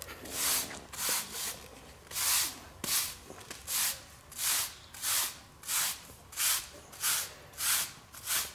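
Broom bristles sweeping dirt and sand off a concrete slab in short, even strokes, a little under two a second.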